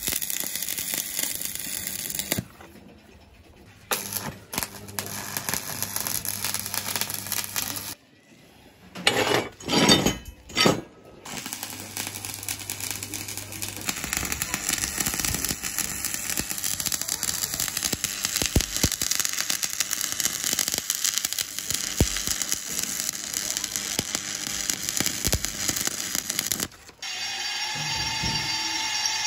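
Stick-welding arc crackling and sizzling in several runs with short pauses, broken about a third of the way in by a few loud rough bursts. Near the end an electric hand drill starts and runs steadily, drilling into the steel.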